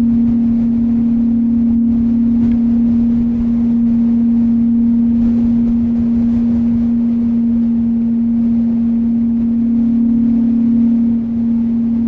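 Mountain wind ambience: a steady wind rumble with one unchanging low humming tone held above it.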